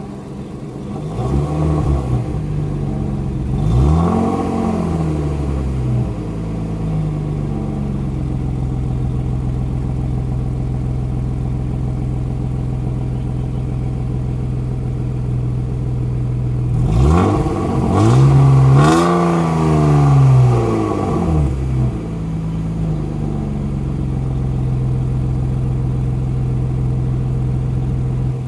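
BMW E36 320i's M52B20 inline-six idling through a custom exhaust with an E46 328i muffler. It is revved briefly about four seconds in, and again for a few seconds from about seventeen seconds in, the pitch rising and falling back to a steady idle each time.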